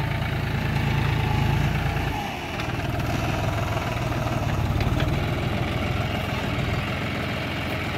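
Diesel tractor engine running steadily while it works a front-mounted loader; its low hum eases about two seconds in, then carries on.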